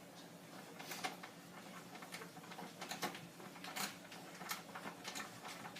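Irregular small clicks and taps of a screw and screwdriver being worked against a plastic stormtrooper helmet while trying to get the screw to bite.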